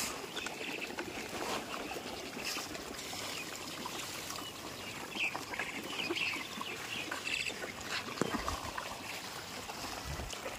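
Lake water lapping, with many small plops and splashes of fish feeding at the surface among floating puffed rice.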